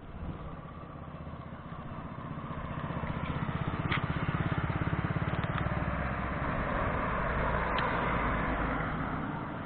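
A motor vehicle passing on the street: engine and tyre noise build up, peak about halfway through, then fade as it moves away.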